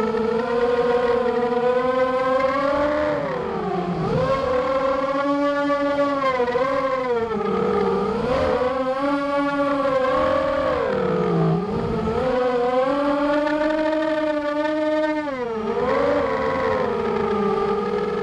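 Racing quadcopter's Cobra 2206 2100 kv brushless motors spinning 6x4 propellers, a high whine heard from the onboard camera. Its pitch rises and falls with the throttle, dropping sharply about four times as the throttle is chopped and punched again.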